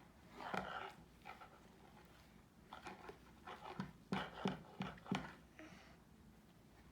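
A small dog yapping in a string of short barks, most of them bunched about three to five seconds in.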